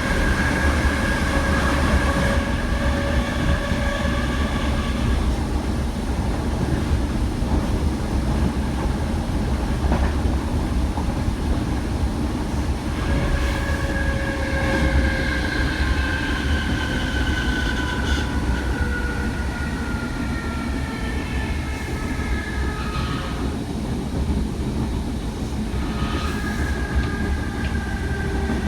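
DART electric train running with a steady heavy rumble of wheels on track. High whining tones slide slowly lower in pitch several times, with a faint rhythmic clatter of the rails.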